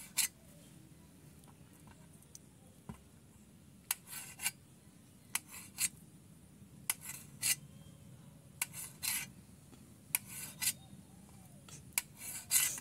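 Kitchen knife cutting soft homemade paneer into cubes on a steel plate: short scraping strokes as the blade goes through the cheese and meets the metal, often in pairs, every second or two.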